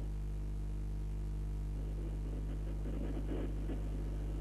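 A steady electrical hum, with faint murmuring voices about halfway through.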